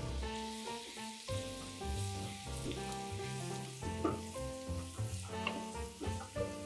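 Diced onion sizzling in hot oil and butter in a frying pan, stirred with a wooden spatula, with a few short scrapes of the spatula on the pan.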